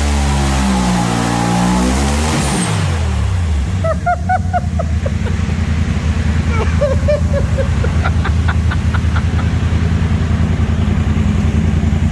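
Turbocharged Polaris RZR engine held at high revs, then the revs drop about two seconds in. It settles into a fast, lumpy low-speed running, with a few short high chirps over it.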